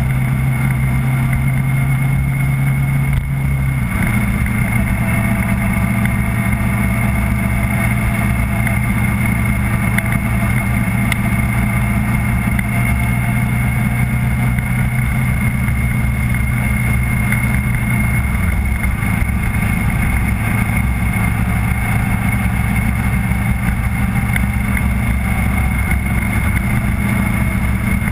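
Vehicle engine heard onboard, running steadily at low cruising revs. Its pitch steps down about four seconds in and again around eighteen seconds.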